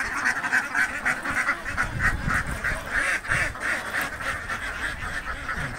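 A flock of domestic ducks quacking continually, many birds calling over one another.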